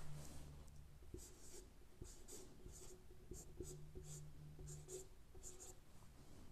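Marker pen writing on a board: a faint run of short scratchy strokes as figures and letters are written out, with a steady low hum underneath.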